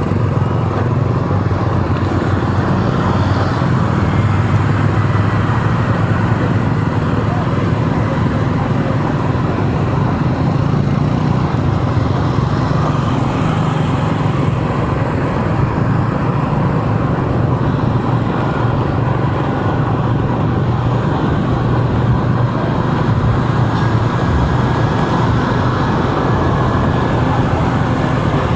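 Steady engine and road noise from driving through city traffic, with motorcycles among the vehicles.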